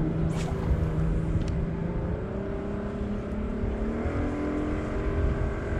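A motor engine droning steadily, its pitch drifting slowly and rising slightly about four seconds in.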